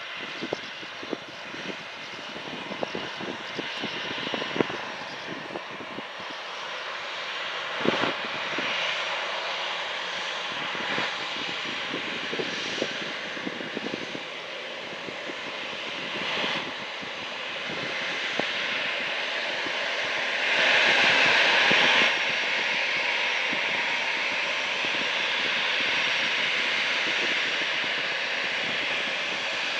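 Airliner engines running, a steady roar that grows gradually louder, with a louder patch lasting about a second and a half about two-thirds of the way through. Scattered sharp crackles run through the first half.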